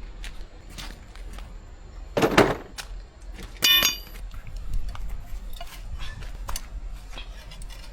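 Metal hand tools clinking and clattering against one another and on metal, with one short scrape and a ringing metallic clang near the middle.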